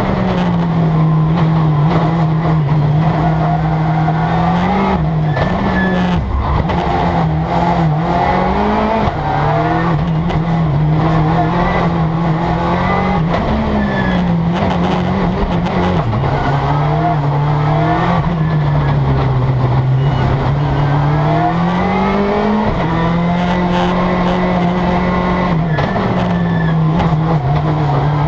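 Peugeot 206 WRC's turbocharged four-cylinder rally engine, heard from inside the cabin, revving hard and falling back repeatedly as the car is driven fast around a circuit, with sudden pitch drops at gear changes. Tyres squeal at times through the corners.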